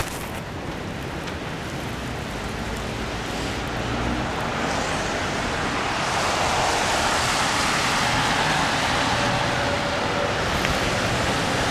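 Traffic on a rain-soaked street: a steady hiss of tyres on wet pavement, swelling over the first few seconds as cars approach and then holding.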